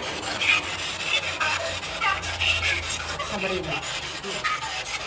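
Continuous scratchy rubbing and rustling, with a faint murmured voice about three and a half seconds in.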